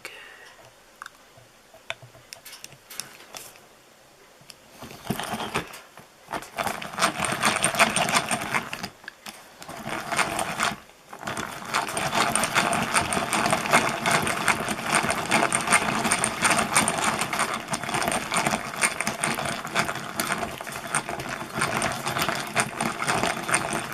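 Hand-cranked drill turning fast, its gears giving a rapid, steady clatter as it bores. It starts about five seconds in and stops briefly a few times.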